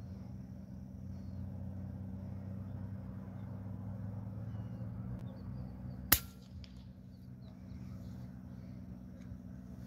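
A scoped air rifle fires once, about six seconds in: a single sharp crack over a steady low hum, with faint bird chirps.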